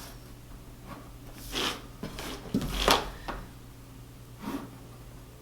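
Short scraping strokes of drafting on paper at a drawing board, a pencil and straightedge sliding across the sheet. There are three strokes, the loudest about three seconds in, just after a soft knock.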